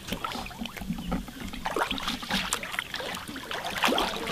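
Water splashing and sloshing in short, irregular bursts, from alligators moving in the water as they are fed.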